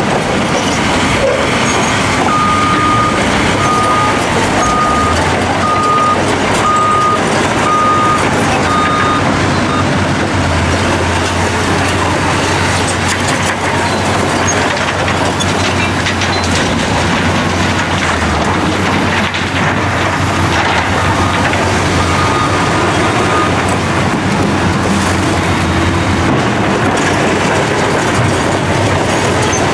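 A CAT 963D tracked loader's diesel engine runs under load, with its steel tracks clattering as it works. Its reversing alarm beeps about once a second for several seconds early on, and a fainter run of beeps comes about two-thirds of the way through.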